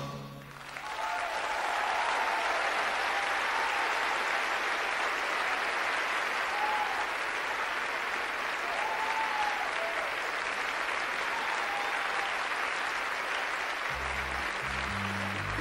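Theatre audience applauding: the band's final chord stops, and within about a second the clapping swells up and carries on steadily, with a few faint calls from the crowd. Low bass notes of music come back in near the end.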